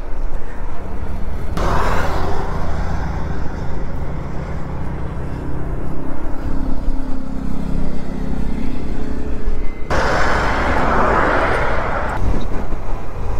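KTM 390 Adventure's single-cylinder engine running on the road, a steady low hum, with two louder rushes of noise about two seconds and ten seconds in.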